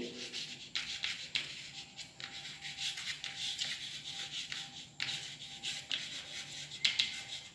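Chalk scratching on a blackboard as a line of words is written, in short strokes with brief pauses between them.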